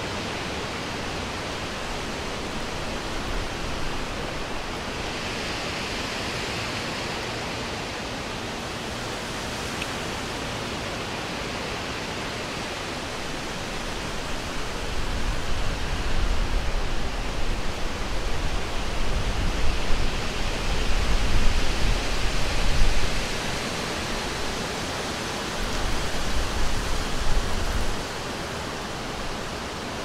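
Summer wind blowing through a forest, a steady rushing of air through the trees. From about halfway through, stronger gusts bring a low rumble, ease off, then return briefly before dropping back near the end.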